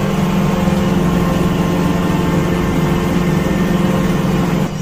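Kubota tractor's engine running steadily under load while pulling a rotary cutter through pasture grass, heard from inside the cab. The drone dips slightly in level near the end.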